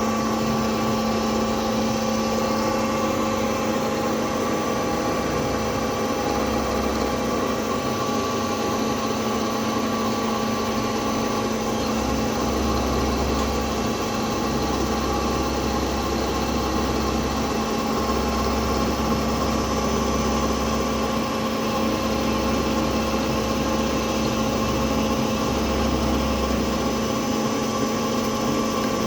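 CNC milling machine running with a steady mechanical hum of several fixed tones. A deeper rumble cuts in and out every few seconds, in stretches of one to three seconds.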